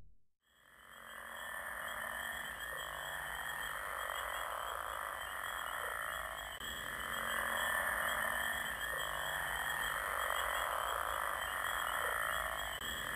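A dense chorus of many frogs calling together in a wetland, fading in after a short gap and swelling and easing every couple of seconds. Steady high trills sit above it.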